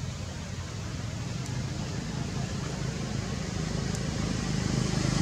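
Steady low hum of a motor vehicle's engine, growing steadily louder.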